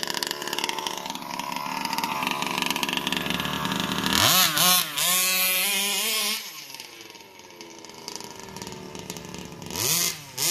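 Small two-stroke engine of an RC monster truck idling steadily, then revving up hard about four seconds in as the truck drives off, its note rising and falling with the throttle. The sound fades as it pulls away, and the engine revs again near the end.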